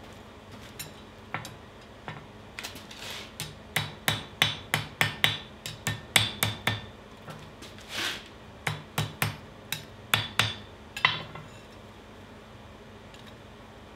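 Blacksmith's hand hammer striking a red-hot steel bottle opener on a cast-iron swage block. The blows come in a long, uneven run of sharp ringing strikes, a few a second, and stop about eleven seconds in.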